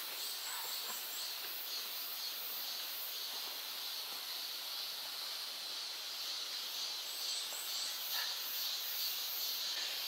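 Mountain forest ambience: a steady high hiss, with a bird twice giving a quick run of four short high chirps, once near the start and once about seven seconds in.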